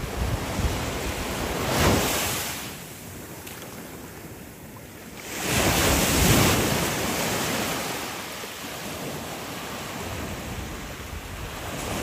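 Small waves breaking and washing up the sand at the edge of a beach, with a hiss that swells twice: briefly about two seconds in, then more strongly around six seconds as a larger wave runs up the shore.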